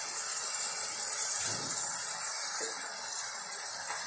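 Onions, dried red chillies and fresh curry leaves sizzling in hot oil in a metal pan: a steady frying hiss.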